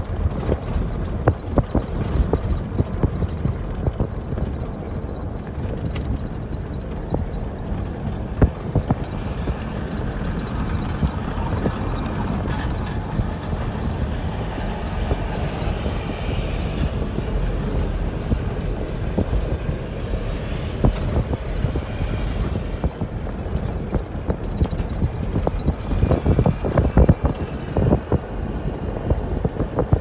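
Vehicle driving along an unpaved dirt road, heard from inside: a steady low rumble of tyres and engine, wind buffeting the microphone, and frequent knocks and rattles from bumps in the road.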